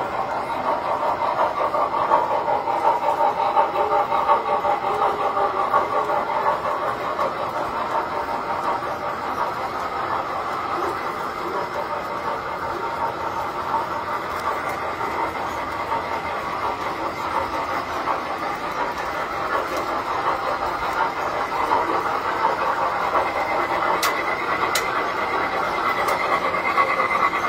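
Tinplate model trains running on their metal track, a steady, continuous clatter of motors and wheels. A thin, high, steady squeal joins in near the end.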